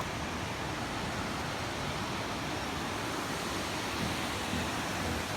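Steady rushing of flowing water, even and unbroken, with a low rumble underneath.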